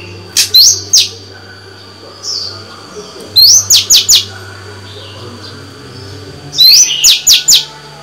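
Female Oriental magpie-robin singing three short phrases about three seconds apart. Each phrase is a rising whistle followed by a quick run of three or four sharp, falling notes.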